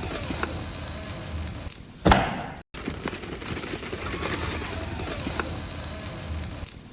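A single loud, sharp bang about two seconds in that trails off over half a second and cuts off suddenly, over a steady background hiss.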